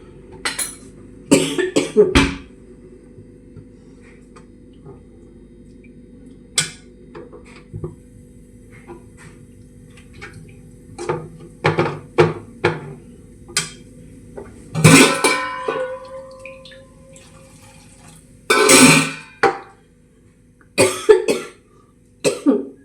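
A metal spoon clattering and scraping in a metal cooking pan as a curry is stirred, in scattered strikes, some of them ringing. About fifteen seconds in, water is poured into the pan.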